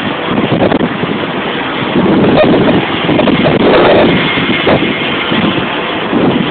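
Storm-force wind buffeting the microphone in loud, continuous gusts, surging about two seconds in and again near four seconds.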